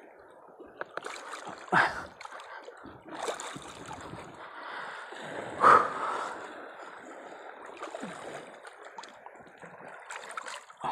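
Shallow sea water sloshing and splashing around someone wading over rocks, with sudden louder splashes about two seconds in and, loudest, just before six seconds in.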